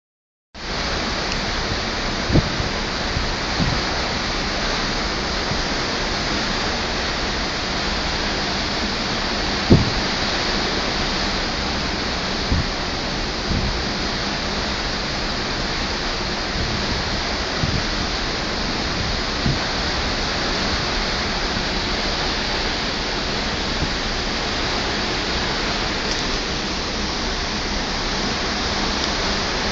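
Steady rushing wash of the sea along the side of a moving cruise ship, heard from a cabin balcony, with a few soft low bumps.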